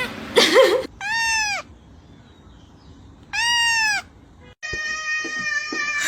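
Cat meowing: two short meows that rise and fall in pitch, then a longer drawn-out meow near the end.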